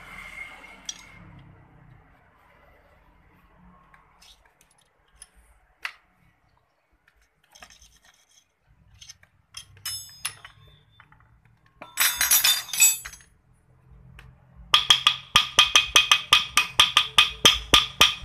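Hammer blows on the metal of a Honda Spacy 110 scooter engine's cylinder head, a fast even run of about five ringing clinks a second in the last few seconds. A shorter clatter of metal on metal comes about two-thirds in, after scattered small taps and clicks.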